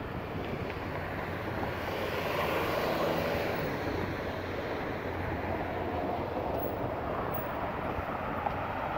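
City street traffic: a motor vehicle passes close, its noise swelling to a peak about three seconds in and then fading back into the steady hum of the street.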